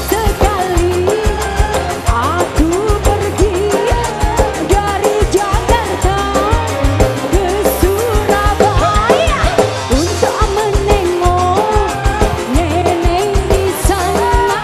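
Dangdut koplo music: a driving drum beat with a bass line under a melody that bends and slides in pitch.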